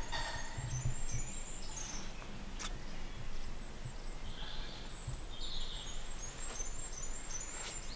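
Small woodland songbirds singing high, thin, quickly repeated phrases, with shorter chirps in between. A single sharp click comes about two and a half seconds in.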